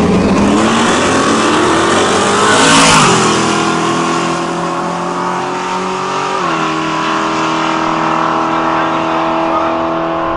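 Two drag-racing pickup trucks, one a Ford Lightning, launching and accelerating hard down the strip. Engine pitch climbs for about three seconds, then drops with upshifts about three and six and a half seconds in before pulling steadily again.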